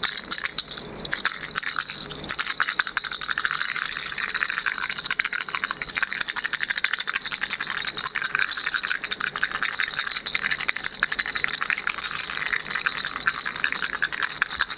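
Baby rattle shaken rapidly and without pause, a dense stream of quick little clicks.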